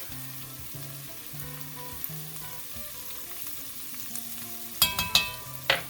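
Onion and garlic frying in oil in a cast iron pot: a soft, steady sizzle. About five seconds in, a few sharp knocks of a utensil against the pot as the turmeric is stirred in.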